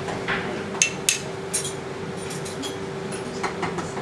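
Metal spoon and utensils clinking against a pot and dishes: a run of sharp, irregular clinks. A steady hum sits under them.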